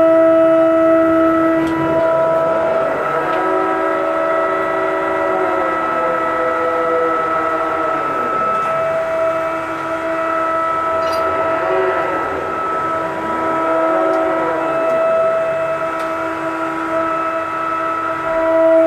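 Ship's deck crane machinery running with a steady whine of several held tones while handling a container, its pitch sweeping up and down three times as the hoist works.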